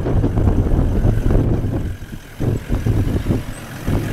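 Toyota Land Cruiser pickup's engine running with a steady low rumble, dipping in level twice.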